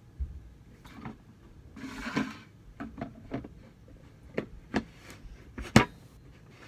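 Slime being handled and put back into its tub on a wooden table: a short soft squishing rustle about two seconds in, then a series of sharp clicks and knocks from the tub and lid, the loudest near the end.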